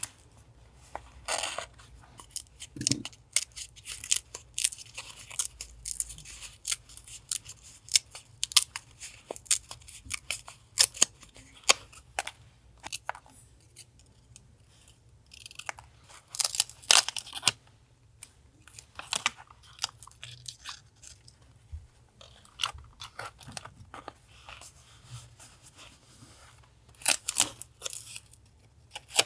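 Scissors snipping paper and paper being handled: a run of short, crisp snips and rustles, with a few longer rustling tears. A steady low refrigerator hum runs underneath.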